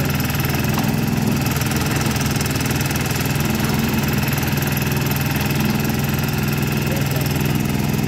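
Engine of a small self-propelled backhoe running at a steady speed while its hydraulic arm digs soil.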